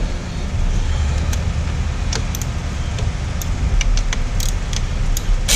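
Wrench clinking on the A/C line fittings as they are loosened, over a steady low rumble. Near the end a sudden loud hiss starts: residual refrigerant escaping from the opened line of a nearly empty A/C system.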